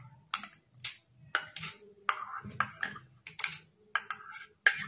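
Metal spoon clinking and scraping against a bowl while scooping syrupy tutti frutti cubes out onto a foil-lined tray: a run of sharp clicks about two a second.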